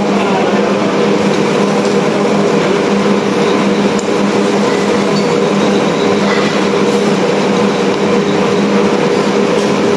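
Steady mechanical roar with a low hum, typical of a grill restaurant's smoke-extraction and ventilation fans, running evenly without a break.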